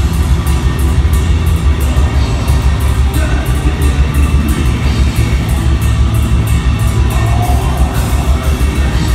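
Live metal band at full volume: heavily distorted guitars and bass under rapid, dense drum and cymbal hits, with a singer's harsh vocals over it. Loud and bass-heavy, as heard from the audience.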